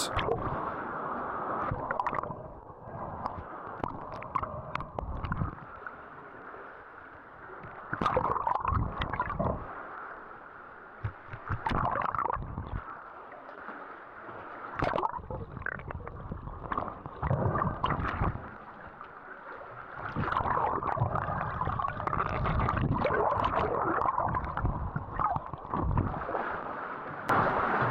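Muffled water sloshing and gurgling as a diver swims, heard underwater through a waterproof camera housing, swelling in irregular surges every few seconds.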